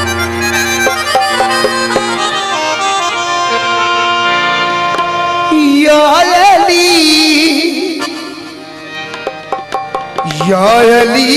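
Harmonium playing held chords with tabla strokes, accompanying a devotional song. A man's voice sings a long wavering phrase a little past halfway and comes in again near the end, with a softer stretch between.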